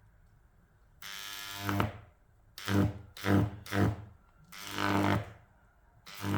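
High-voltage arc drawn from a microwave oven transformer, buzzing harshly each time it is powered. It comes in six bursts: one lasting about a second, three short ones in quick succession, a longer one, and a short one at the end.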